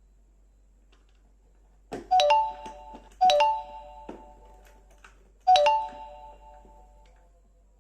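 A bright electronic chime, like a doorbell, rings three times: about two seconds in, again just over a second later, and once more about two seconds after that. Each ding starts sharply and rings out for about a second and a half.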